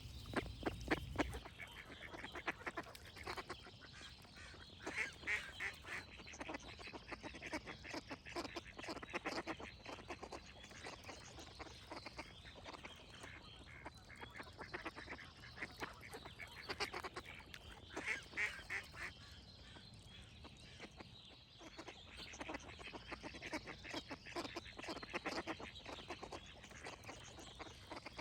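Ducks quacking over and over in rapid, overlapping runs, with birds singing behind them.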